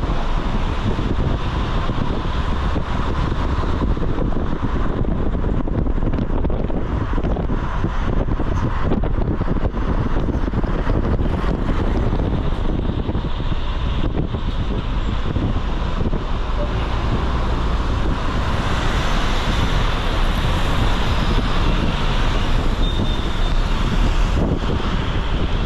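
Steady road traffic noise from a moving vehicle, with wind rumbling on the microphone.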